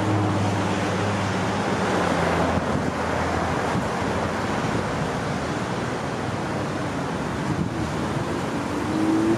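Steady road traffic noise. A vehicle engine hum fades over the first two seconds, and a rising engine note comes in near the end.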